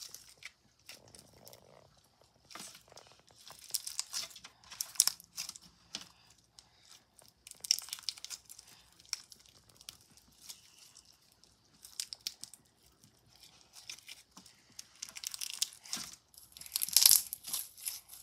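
Clear slime packed with blue and purple beads being stretched and squished by hand: irregular wet crackling and popping, loudest near the end.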